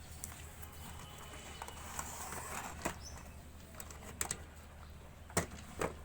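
Packaging being handled one-handed: a few sharp taps and clicks, the loudest about two thirds of the way in, with a little soft rustling before them.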